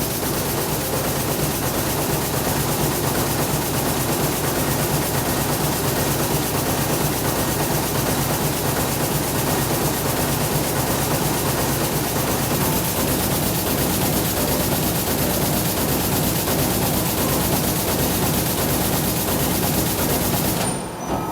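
Air-jet loom with a jacquard device running, weaving a six-colour tapestry at about 550 weft picks a minute: a loud, steady mechanical clatter that stops shortly before the end.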